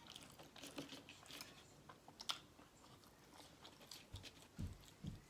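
Faint chewing of McDonald's french fries close to the microphone, with small scattered mouth clicks and a few soft low thumps near the end.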